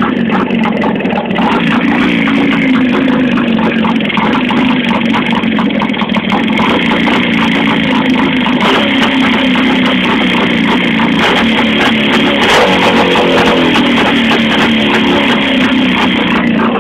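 Motorcycle engine running near idle with a fast, even ticking rattle through it, the noise the owner calls a rustle that quickens with revs and suspects is in the piston group.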